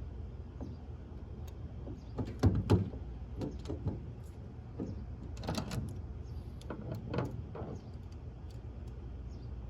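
Light knocks and clicks of grill parts being handled while a temperature probe is fitted into its mount, the loudest cluster a little over two seconds in. A steady low hum runs underneath.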